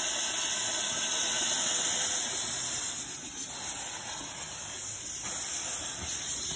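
Narrow-gauge steam locomotive moving off, venting steam from its open cylinder drain cocks in a loud steady hiss that eases about three seconds in.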